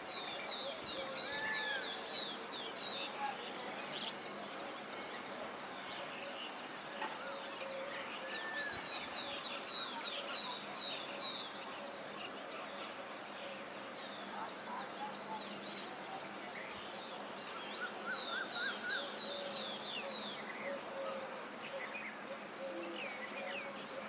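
Several birds chirping in a morning chorus, with runs of quick falling chirps repeated in series several times and a few single arched calls between them.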